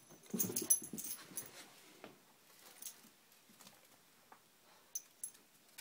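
Boston Terriers at play: a burst of dog noise and scuffling about half a second in, then quieter scattered taps and rustles, with two sharp clicks near the end.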